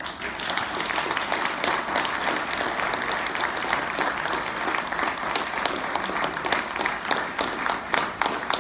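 Audience applauding, breaking in suddenly and thinning to scattered separate claps near the end.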